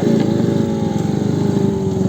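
Benelli TNT 600's inline-four engine running at a steady speed, its pitch dipping briefly right at the start and then sagging slowly.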